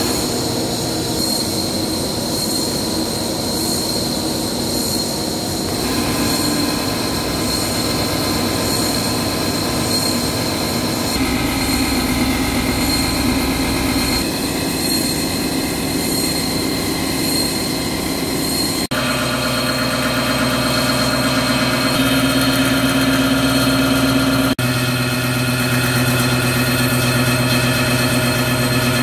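CNC horizontal boring machine cutting the bore of a large steel wheel hub: a steady metallic whine of spindle and boring tool in the steel, made of several held tones. Its pitch and character change abruptly several times, and it is somewhat louder in the last third.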